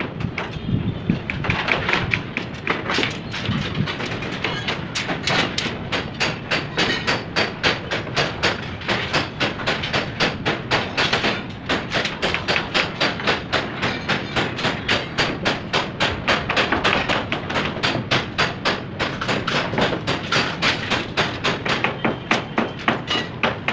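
Repeated sharp knocks in a steady rhythm, about three to four a second.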